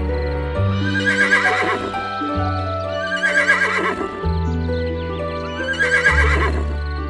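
Background music with slow held chords, and three wavering animal calls over it, each about a second long and roughly two and a half seconds apart.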